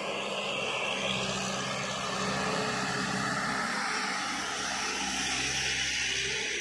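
Diesel engine of a heavily loaded light box truck labouring at low speed up a steep, narrow bend: a steady drone that gets a little louder as the truck passes close by.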